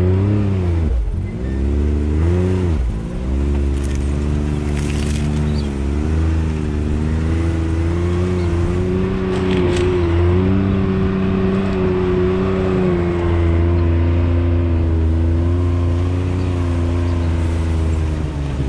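Can-Am Maverick X3 X RC Turbo RR's turbocharged three-cylinder engine pulling the side-by-side along a snowy trail. The revs rise and fall in short surges for the first few seconds, then hold steadier with gentle swells. Brush briefly scrapes against the machine a few times.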